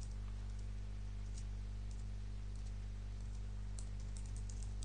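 Computer keyboard being typed on: scattered light keystrokes, with a quicker run of them near the end, over a steady low hum.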